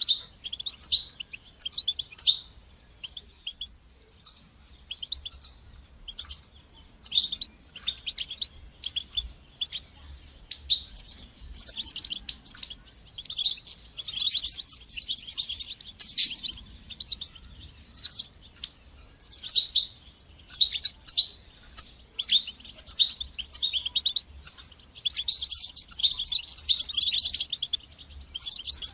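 European goldfinch singing: bursts of rapid, high twittering and tinkling notes, one phrase after another with short pauses between.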